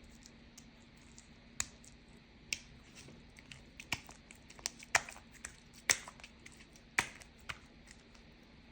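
Slime being squeezed and worked by hand, giving irregular sharp clicks and pops, several a second at their busiest in the middle stretch.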